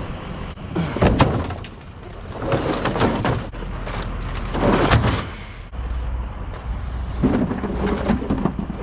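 Knocks, thumps and clatter of heavy objects being handled and set down, with a low hum from about six seconds in.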